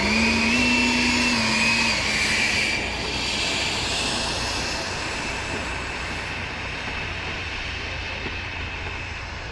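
HSD F-16 RC jet's 105 mm electric ducted fan whining in flight. It is loudest at first, with a high whine that steps down in pitch about two seconds in, then a steady rush that slowly fades.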